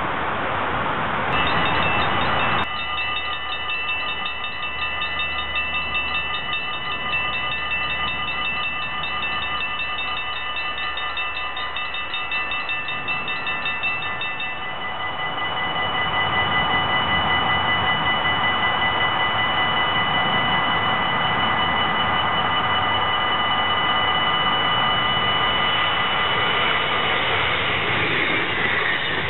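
Dutch level-crossing bells ringing fast and steadily, several bells at once. About halfway through, the fastest ringing stops while steady ringing carries on, and near the end the rush of an approaching train rises under it.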